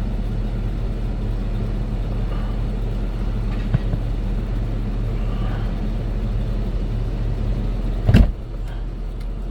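2007 Jeep Grand Cherokee idling with the air conditioning running, a steady low hum. About eight seconds in, the car door is shut with a loud thump, and the hum is a little quieter afterwards.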